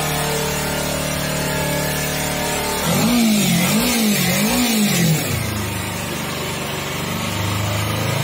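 Motorcycle engine with stock exhaust idling steadily. About three seconds in it is revved in three quick throttle blips, then it settles back to idle.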